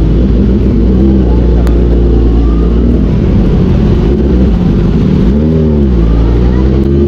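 Kawasaki ZX-10R inline-four engine running at low speed in slow traffic, in second gear and picking up speed. About five and a half seconds in, its pitch rises and falls once in a short blip of the throttle.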